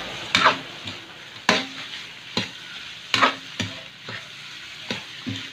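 Metal spatula scraping and turning chicken pieces in a large metal wok, a sharp scrape about once a second, over a steady sizzle of frying.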